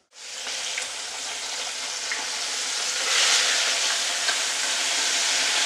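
Catfish pieces frying in hot oil in a wok, a steady sizzle that grows louder about three seconds in as a piece of fish goes into the oil.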